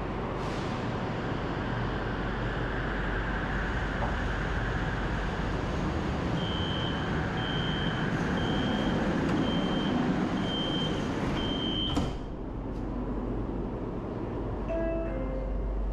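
LRT train door-closing warning: about six short high beeps, one a second, over the steady rumble of the train. The doors then shut with a knock, after which the rumble drops. Near the end a short falling chime sounds.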